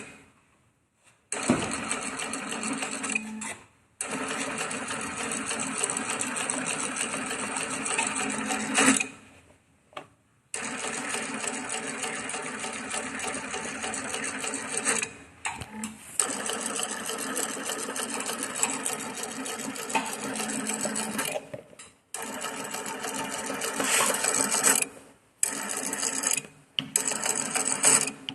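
Direct-drive, compound-feed walking-foot cylinder-bed industrial sewing machine stitching at a steady speed in runs of a few seconds. It stops briefly and starts again several times.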